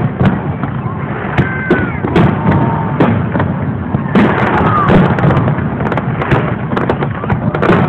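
Fireworks display: aerial shells bursting one after another, a steady run of bangs and crackles with a few short whistling glides.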